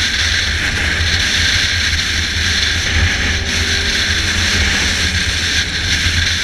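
Yamaha XJ6 motorcycle's inline-four with a 4-into-1 aftermarket exhaust running steadily under way, with a loud, steady rush of wind noise on the action camera's microphone.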